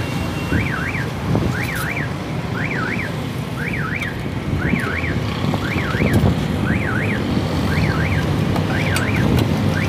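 An electronic alarm warbling in a repeating pattern, a quick double up-and-down sweep about once a second, over a steady low traffic rumble. A few sharp clicks of a metal spatula on the steel griddle sound now and then.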